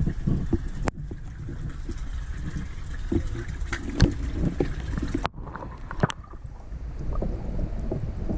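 Wind buffeting the microphone in a low rumble, with a few sharp clicks and knocks.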